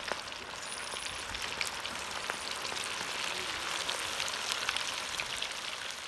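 Hot oil sizzling steadily in a deep fryer, with many small crackles and pops.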